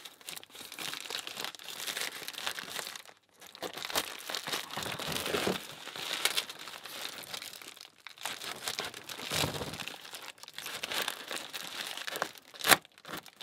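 Plastic wrapping, a trash bag, crinkling and tearing as a parcel is unwrapped by hand, in uneven rustling spells with short pauses. A single sharp snap near the end is the loudest moment.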